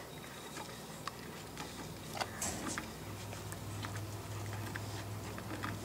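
Bernese Mountain Dog puppies scuffling as they wrestle and chew on each other: scattered small clicks, ticks and rustles of paws, teeth and bodies on wood shavings. A low steady hum comes in about halfway through.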